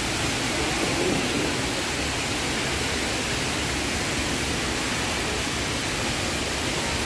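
Steady rush of water from the Rain Vortex, Jewel Changi's indoor waterfall, pouring down into its pool.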